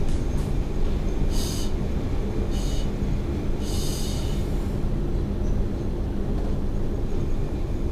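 Class M4 diesel-electric locomotive running, heard from its cab as it rolls slowly forward: a steady engine rumble and hum, with three short hisses in the first half.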